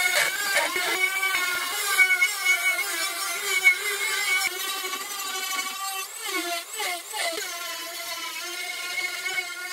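Handheld rotary tool with a burr bit cutting a spiral groove into apple burl wood: a high motor whine that dips in pitch now and then as the burr is pressed into the wood, mostly past the halfway point.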